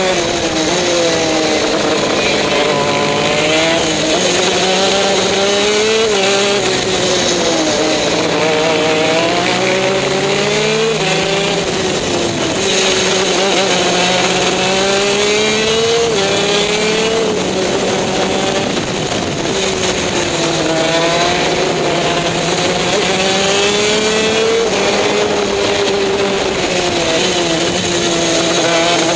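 TM K9C 125cc two-stroke shifter kart engine at racing speed. Its pitch repeatedly climbs and then drops every few seconds as it shifts up through the gears and brakes for corners, heard from on board the kart.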